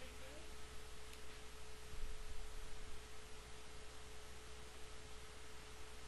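Quiet recording background: a steady hiss with a faint constant tone and a low hum running under it.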